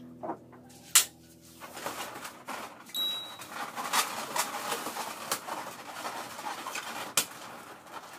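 Inflated latex balloons rubbing and squeaking against one another as they are handled and pressed into a balloon column, with many small clicks. A sharp click about a second in is the loudest sound.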